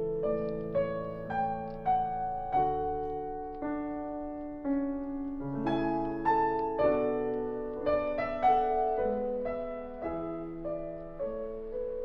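Background piano music: a slow, gentle melody of single notes over held chords.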